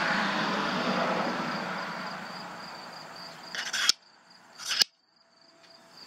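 Handling noise as a telescope finder is turned in the hands: a rustling hiss that fades away, two short scrapes around the middle, then near silence. A faint steady high whine runs underneath.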